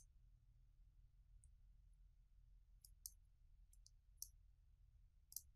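Computer mouse button clicks: about half a dozen faint, sharp clicks spread out, two of them in quick succession a little past the middle, over a faint low hum.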